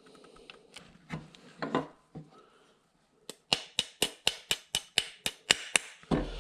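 Steel pin being tapped through an AR-15 lower receiver to hold the trigger group: faint handling and scraping of the parts, then about ten sharp, evenly spaced metallic taps at roughly four a second, and a dull thump near the end.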